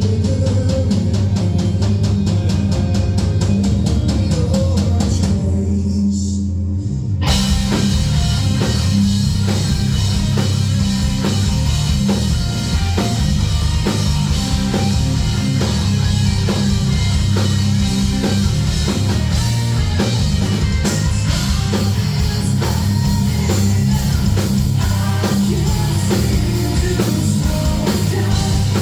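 Heavy metal band playing live through a club PA: distorted guitars and bass with drums. After a brief dip about six seconds in, the full kit with cymbals comes in and the band plays on at full volume.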